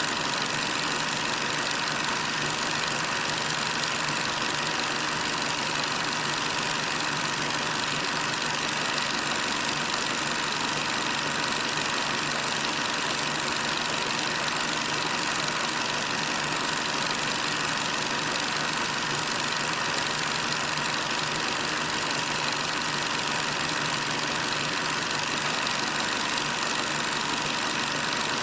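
Steady hiss with a faint hum underneath, unchanging throughout, with no marching steps, music or crowd heard: the background noise of an old film soundtrack.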